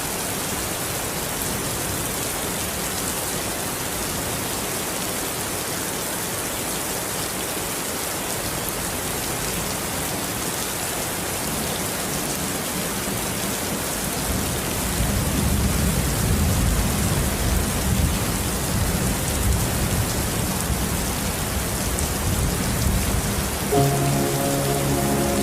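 Steady rain falling, an even hiss throughout. About halfway through, a low rumble joins it, and near the end soft music with held notes comes in over the rain.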